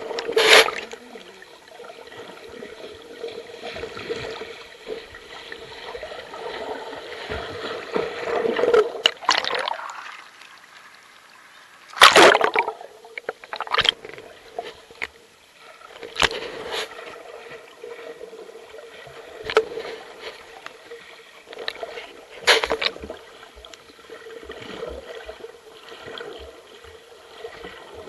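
Creek water heard through an underwater camera: a steady, muffled rushing and gurgling with a faint steady hum. Four loud, short bursts of splashing and bubbles cut through it: one right at the start and three more spread through the rest.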